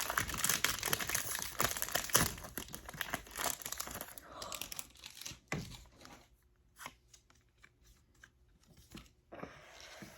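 Foil Pokémon booster pack wrapper being torn open and crinkled, dense crackling for about the first five seconds, then only a few scattered small clicks and rustles.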